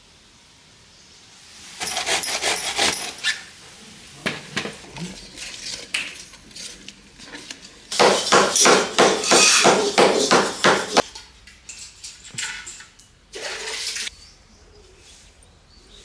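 Hands patting and slapping a ball of roti dough flat on a floured wooden plate: a quick, even run of slaps, about four a second, starting about eight seconds in and lasting about three seconds. Shorter bursts of kitchen noise come before and after it.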